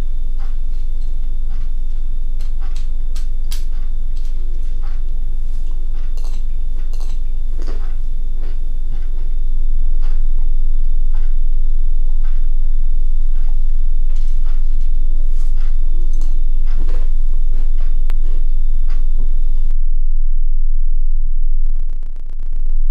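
A metal spoon clinking against a bowl of cereal in irregular clinks, over a loud, steady low drone and a thin, steady high tone. Near the end the clinking and the high tone cut out suddenly, followed by a brief rapid buzz.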